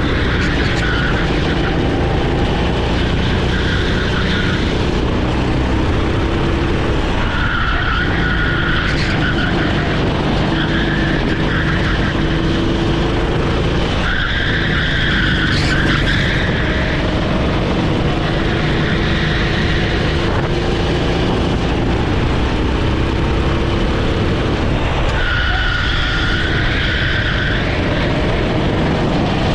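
Rental kart's single-cylinder Honda GX390 four-stroke engine running hard, its pitch rising and falling with the throttle. The tyres squeal in short stretches, about six times, as the kart goes through corners.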